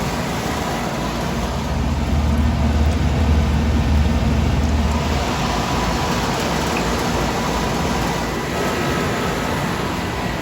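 1983 Whirlpool heat pump running in cool mode with its front panel off: its Bristol reciprocating compressor and fan make a steady hum and rush of air. A deeper low hum swells about a second in and falls away about five seconds in.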